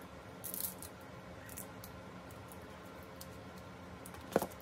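Scissors snipping through packing wrap: a few faint crackly snips and rustles, then one sharp click near the end.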